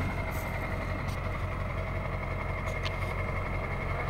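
Vehicle engine idling steadily: an even low hum with a faint constant whine above it.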